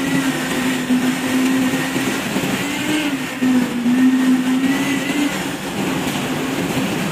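A machine motor running steadily with a droning tone that wavers and dips briefly about three seconds in.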